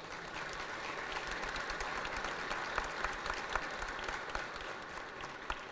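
Audience applause: many people clapping, building over the first second, holding steady and tapering off near the end.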